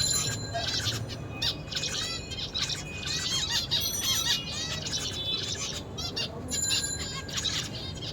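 Zebra finch singing: runs of short, high chirps, several a second, broken by brief pauses.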